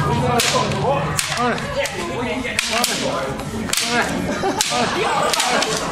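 A sword striking kendo armour, a series of sharp smacks about once a second, against the voices of onlookers.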